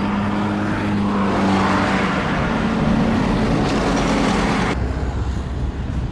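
A vehicle running by with a steady engine or motor hum under a swelling rumble, which cuts off sharply near the end to a lower, quieter background noise.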